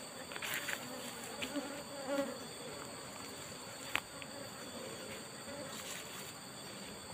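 Asian honeybees (Apis cerana) buzzing around their wild nest in a rock crevice, a faint wavering hum against a steady high-pitched insect drone. A few light clicks come through, the sharpest about four seconds in.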